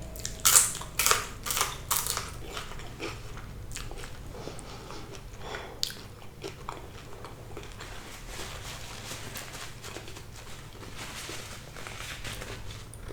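Close-miked bites into crispy, slightly burnt fried sea bass: about five loud crunches in the first two seconds, then quieter chewing.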